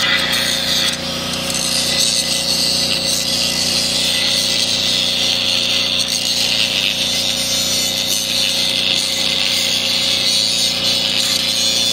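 Handheld angle grinder running steadily, its disc grinding into the steel frame of a disk's broken undercarriage wheel mount to V out the crack for welding; it eases briefly about a second in, then bites again.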